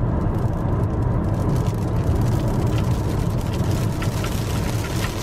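Steady road and engine rumble inside a moving car's cabin, with raindrops starting to tap on the windshield. The taps grow more frequent from about two seconds in as the rain picks up.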